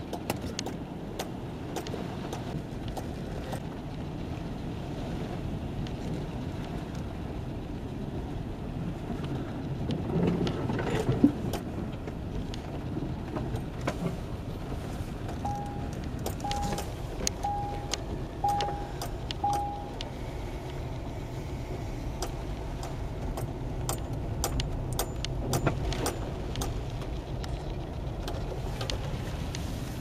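Car interior during a rainstorm: the car running with a steady low rumble while raindrops tick and patter on the roof and windows. A single loud knock comes about a third of the way in, and midway five short beeps sound about a second apart.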